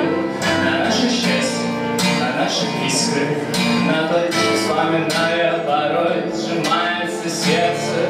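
A man singing a light-rock song to his own strummed acoustic guitar.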